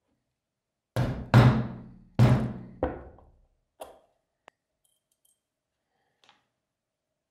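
Four hammer blows on a snap-setting tool over a steel anvil block, close together, each ringing briefly, as a snap fastener is set through leather. A few faint light clicks of small metal parts follow.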